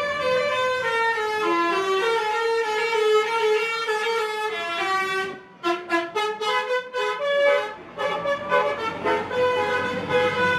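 Indonesian bus 'telolet' Basuri musical horn playing a tune in stepped notes. About five seconds in it breaks off into a quick run of short staccato toots, then returns to longer held notes.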